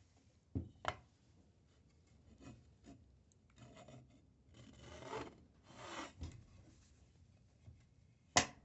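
Wood being handled and rubbed: two light knocks, then a few seconds of scraping, with a sharp knock near the end, the loudest sound.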